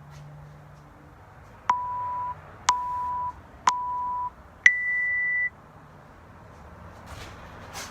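Workout interval timer's start countdown: three short beeps about a second apart, then a longer beep an octave higher that signals go.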